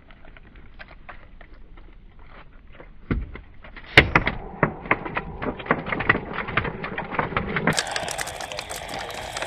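Hands handling a small flathead on a plastic sit-on-top kayak while it is unhooked. A loud knock about four seconds in is followed by a quick run of clicks and taps. Near the end a steady hiss sets in.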